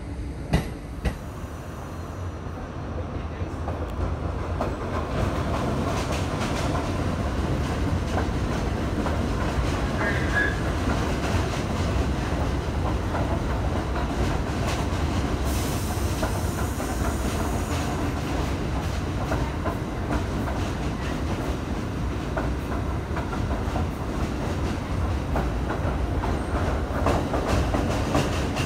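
Subway train running along the track, with a steady rumble of wheels and clickety-clack over the rail joints that builds over the first few seconds. Two sharp clicks come within the first second.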